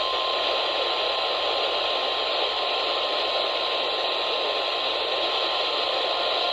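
NOAA Weather Radio's 1050 Hz warning alarm tone, a single steady high tone, heard under heavy static hiss on a weather radio receiver.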